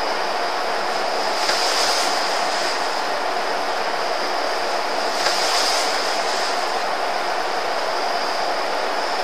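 Steady rushing hiss, swelling briefly brighter twice: about a second and a half in and again about five seconds in.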